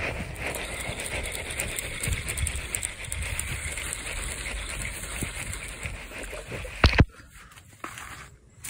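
Handling noise from the phone: a hand and sleeve rub over the microphone in a steady rustle that ends with a knock about seven seconds in.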